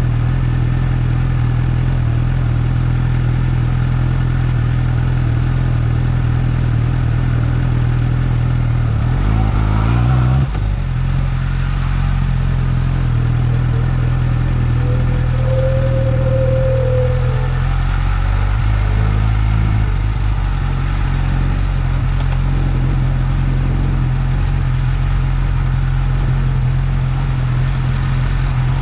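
Yamaha R6 motorcycle's inline-four engine idling steadily through its stock exhaust, with one short rise in revs about ten seconds in before it settles back to idle.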